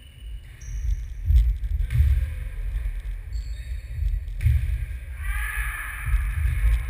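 Football-tennis rally on a sports-hall parquet floor: the ball thuds off feet and floor a few times over a heavy low rumble. A short high-pitched squeal comes about five seconds in.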